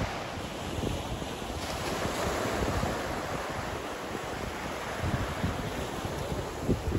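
Small waves washing in over a sandy beach, with wind gusting on the microphone, more strongly in the second half.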